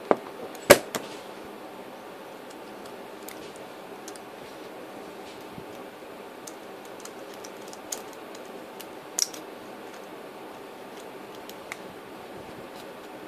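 Scattered sharp clicks and taps from handling a freshly opened vintage RGM padlock, the loudest about three-quarters of a second in and a few more spaced several seconds apart, over a steady background hiss.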